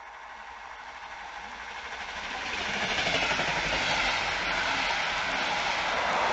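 Red double-deck regional train rolling past close by along the platform. The rumble and rail noise grow over the first three seconds as it approaches, then hold steady and loud while the double-deck coaches go by.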